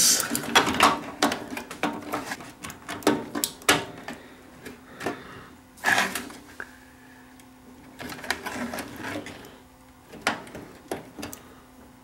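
Irregular plastic clicks and knocks of small parts being handled inside a microwave oven's chassis, as a door interlock switch is pushed into its plastic mount, with a faint steady hum underneath.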